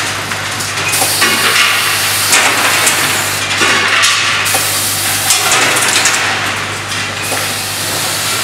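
Automated cap-and-insert assembly machine running, with the steady hum of a vibratory bowl feeder under a constant clatter of caps and parts, hissing that swells and fades about once a second, and scattered clicks of the mechanisms.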